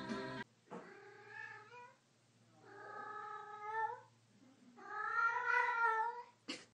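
A ginger cat giving three long, drawn-out meows, each over a second long, with the last one the loudest.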